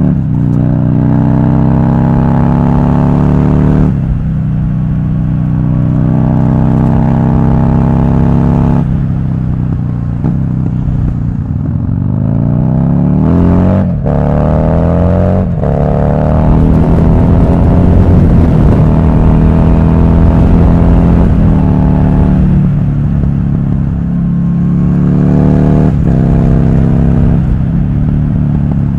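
Buell XB12R Firebolt's 1203cc V-twin engine pulling hard under acceleration, its pitch climbing and dropping back at each upshift several times, then easing off and building again, with wind rushing past the helmet microphone.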